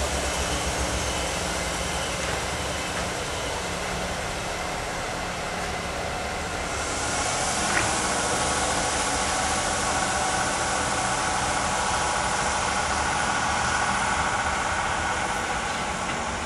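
Diesel regional train's engine running as the train pulls away. About seven seconds in, a louder hiss and a higher whining tone join the engine sound and hold steady.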